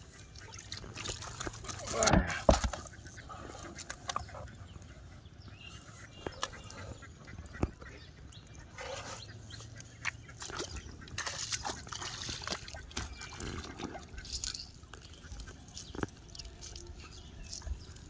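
Hooked carp splashing as it is hauled to the bank on a hand line, then carp flapping in shallow water in a plastic basin, with scattered knocks and clicks from handling. A brief loud call about two seconds in is the loudest sound.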